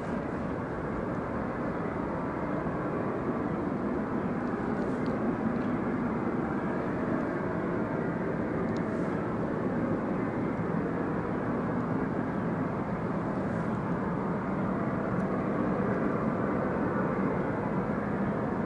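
Steady, jet-like roar of a power plant across the lake: an even rushing noise that holds level without rising or falling.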